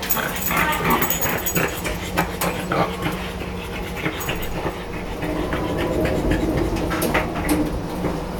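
French bulldog whimpering in a few short, high whines, with scattered clicks over a steady low hum.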